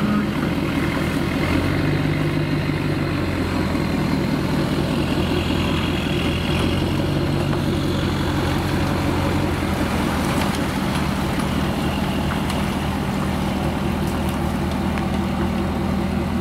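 An engine running steadily at idle, a continuous low hum with a few held tones.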